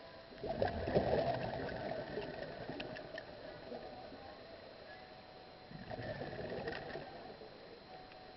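Scuba diver's exhaled bubbles from the regulator, heard underwater: a bubbly burst about half a second in lasting a couple of seconds, and another near six seconds in, over a faint steady hum.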